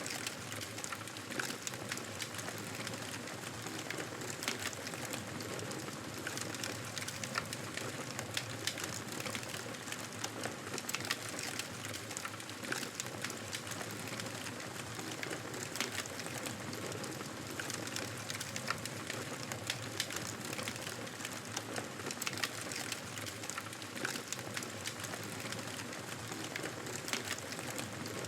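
Wood fire crackling steadily, with frequent small sharp pops over a constant soft hiss.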